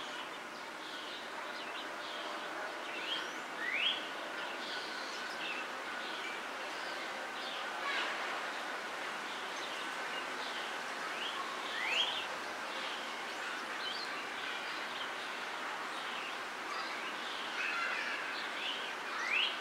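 Wild birds chirping and singing: many short high chirps, with a rising whistled note repeated about every four seconds, over a steady background hiss.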